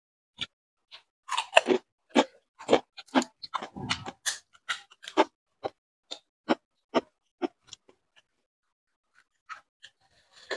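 Crisp fuchka (panipuri) shells crunching: a fast run of sharp crunches for the first five seconds, thinning out until about eight seconds in. After a short pause a few more come near the end.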